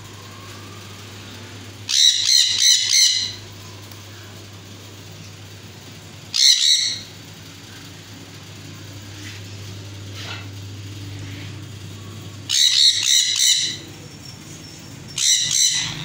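Sun conures screeching: loud, harsh calls in four bursts, three of them quick runs of several screeches and one a single call, over a steady low hum.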